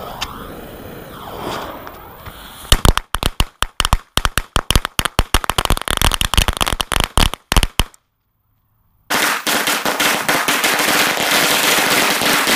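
Packs of Black Cat firecrackers going off in a rapid, irregular string of sharp bangs, starting a few seconds in. After a sudden second of silence, a denser run of crackling pops continues to the end.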